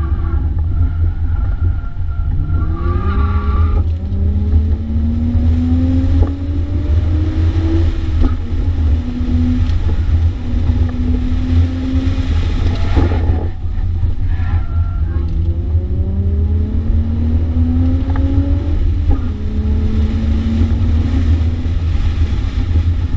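Infiniti G35 coupe's 3.5-litre V6 engine, heard from inside the cabin under hard driving on an autocross course. The engine note climbs in pitch several times, each climb breaking off into a sudden drop, over a steady low road rumble. A high tyre squeal sounds in the first few seconds.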